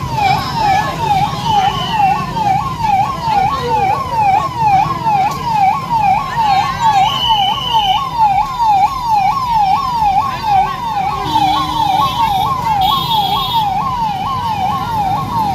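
Ambulance siren sounding a fast yelp, a rising-and-falling wail repeating about three to four times a second, with no break.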